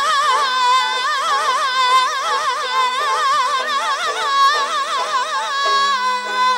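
Male Azerbaijani mugham singer (khanende) singing a long melismatic phrase full of rapid throat trills (tahrir), over a held low accompanying note that steps down near the end.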